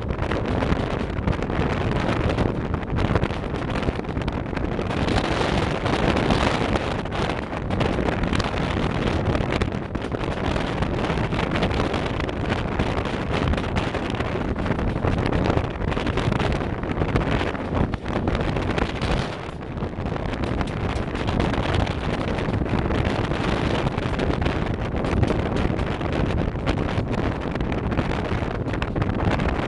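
Wind buffeting the microphone: a loud, rough, steady rumble that rises and falls in gusts.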